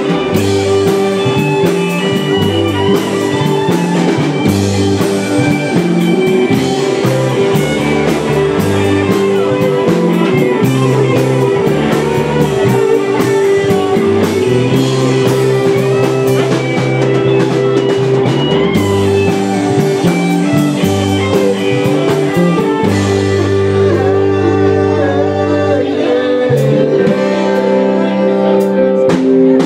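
Live rock band playing a song: electric guitars, bass and drum kit, with a man singing into a microphone.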